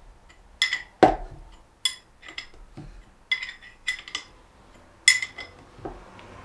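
Spanner clinking on the metal fitting of a pressure washer trigger gun as a Loctited fitting is worked loose: about ten sharp, irregularly spaced metallic clinks, the loudest about a second in.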